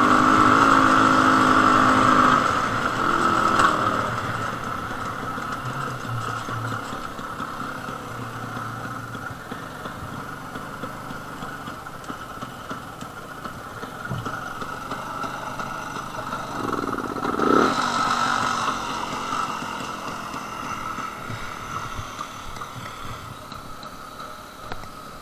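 Jawa 250/353 single-cylinder two-stroke motorcycle engine, loud at first, then dropping away after two to four seconds to quieter, steady running. One short rev about 17 seconds in.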